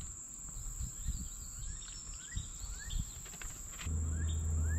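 Summer insects, crickets or cicadas, buzzing in a steady high tone, with a run of short rising chirps and a few soft low knocks. Near the end a steady low hum comes in and the sound grows louder.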